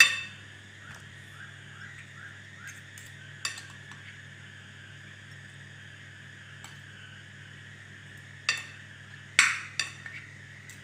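A metal fork and spoon clink against a glass mixing bowl as boiled squid and water spinach are tossed together. There are a handful of sharp clinks, the loudest at the start and about nine seconds in, over a steady low hum.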